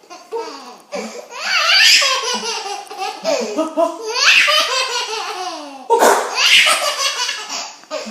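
A baby laughing hard in three long fits, the laughs rising and falling in pitch, set off by an adult's sneezes; a sudden sneeze-like burst about six seconds in starts the last fit.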